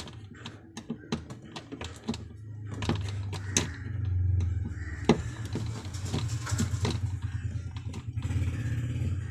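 Irregular small clicks and taps as wire connectors and thermostat parts are handled and fitted. Partway through, a steady low motor-like hum starts and runs under them, loudest a little over four seconds in.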